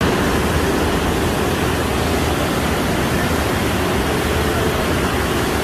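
Flash floodwater pouring into a subway station: a loud, steady rush.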